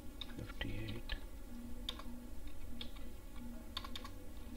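Computer keyboard being typed on: a handful of separate keystrokes at irregular intervals.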